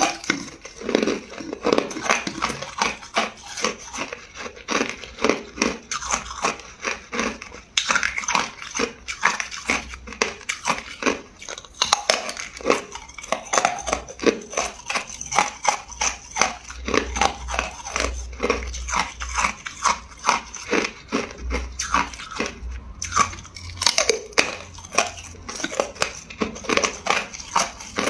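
A person biting and chewing hard clear ice close to the microphone: a steady run of sharp, crackling crunches, several a second.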